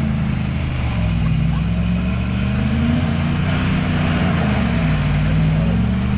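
Truck engine revving hard under load, its pitch rising and falling several times, as it strains to tow a heavy fallen tree out of a pond and up the bank.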